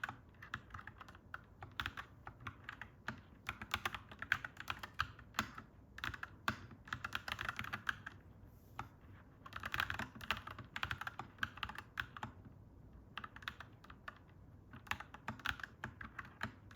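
Mechanical keyboard being typed on, clacky keystrokes in quick runs broken by a couple of short pauses.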